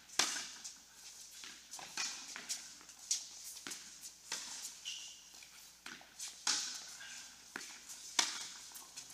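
Tennis ball knocking off rackets and bouncing on an indoor hard court during a doubles rally. Each hit echoes around the hall, with footsteps and a short shoe squeak about five seconds in.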